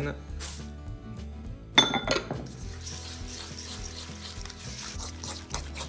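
Rolled oats tipped into a stainless steel mixing bowl: one sharp, ringing metallic clink against the bowl about two seconds in, then a soft rustle and scrape of the flakes. Background music with a steady bass runs underneath.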